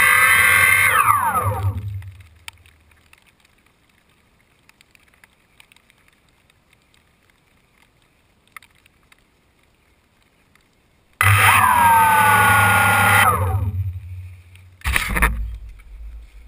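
DJI Phantom quadcopter motors whining and spinning down, falling in pitch and stopping about two seconds in. After a quiet stretch they start up suddenly again, run briefly and wind down once more. Near the end there are knocks and rustles of the camera being handled.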